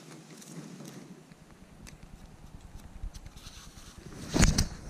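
Light clicks and taps as a carbon fishing pole is handled and slid out over its rest, under a low rumble of wind on the microphone. About four and a half seconds in there is one short, loud bump, the loudest sound here.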